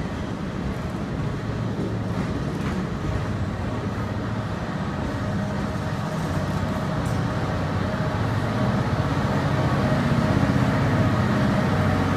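Blue sleeper coaches of the Hokutosei rolling slowly past at a platform, with a steady hum and wheel noise that grow louder in the second half as the end car comes by.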